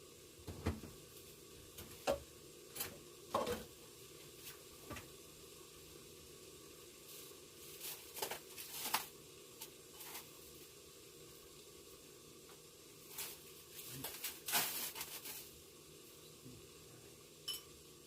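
Pork and tomato stir-frying in a pan: a steady low sizzle with scattered clatters and scrapes of a cooking utensil against the pan, in clusters.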